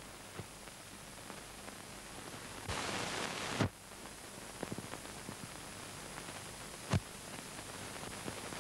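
Steady hiss and crackle of an old, worn film soundtrack, with a few sharp clicks. A louder rush of hiss lasts about a second and cuts off abruptly.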